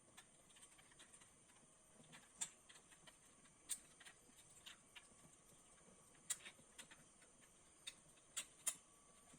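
Faint, scattered clicks and taps of computer parts being handled during assembly, with a few louder clicks and two close together near the end.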